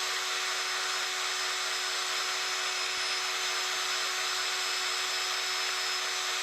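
Cordless drill with a 3-inch sanding disc running at a steady speed, a constant whine with a hiss over it, wet-sanding an alloy wheel's curb rash with 2000-grit paper.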